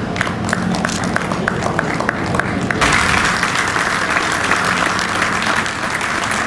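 Hand clapping: at first a few people clap in an even rhythm, about four claps a second, then from about three seconds in, dense applause from an audience.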